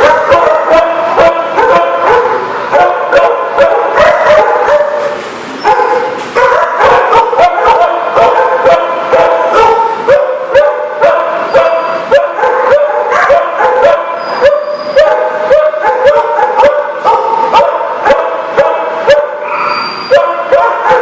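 Several dogs barking and yipping nonstop, their barks overlapping at different pitches several times a second.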